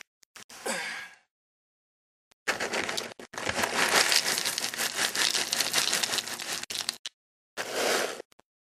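Dry pet food poured from a cardboard box into a bowl on the floor: a dense rattle of kibble hitting the bowl for about four and a half seconds, then a shorter shake near the end.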